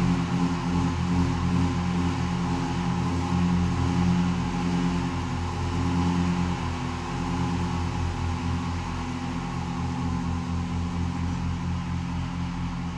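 Pipe organ (Wolff & Associés, opus 24) holding several sustained low tones that beat against one another in a quick, even throb. Under them runs a steady buzzing hiss from amplified percussion vibrating in sympathy with the organ. The sound eases slightly after about six seconds in.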